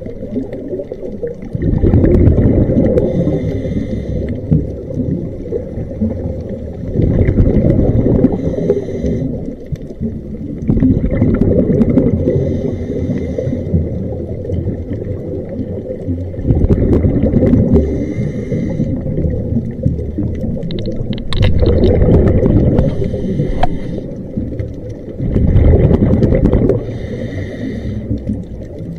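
Scuba diver breathing through a regulator underwater. Bursts of exhaled bubbles gurgle and rumble past the housing about every four to five seconds, with quieter hissing inhalations between them.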